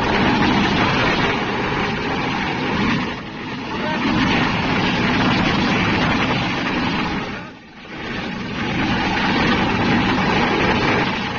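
Steady wind and road noise of a moving vehicle, dipping briefly twice.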